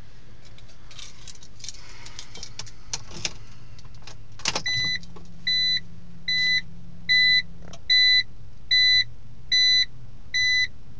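BMW Z4 engine idling with a steady low hum, an idle the owner calls rough. Clicks and rattles come in the first few seconds. About halfway a clunk is followed by eight evenly spaced electronic warning chimes from the car, and a second steady hum sounds for about three seconds under the first chimes.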